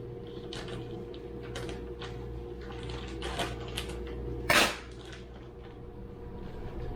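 Brown sugar being added to a container on a kitchen scale: soft scrapes and light clinks of utensils and container, with one louder clatter about four and a half seconds in.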